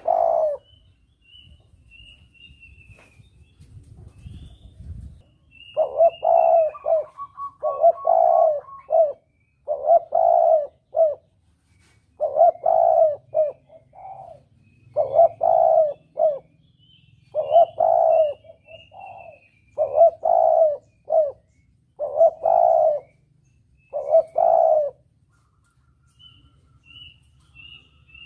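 Spotted dove (tekukur) cooing: one coo at the start, then, after a pause of a few seconds, a run of about ten coo phrases, each with two or three notes, about every two seconds. Faint high thin chirps from another small bird come and go above the coos. This is a lure call of the kind used to draw doves in for hunting.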